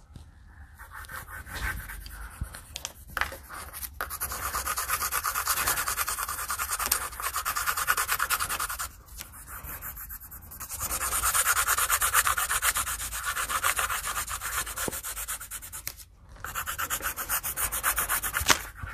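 Pencil shading on paper on a clipboard: rapid back-and-forth scribbling strokes in long stretches, with short pauses about 9 and 16 seconds in.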